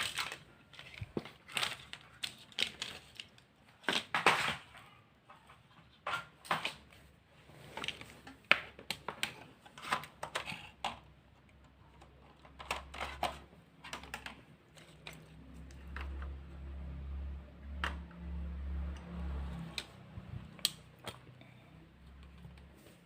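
Irregular clicks and taps of laptop keys and plastic casing being pressed and handled while the laptop is powered on after a RAM swap. About two-thirds of the way through, a low hum comes in and runs for several seconds.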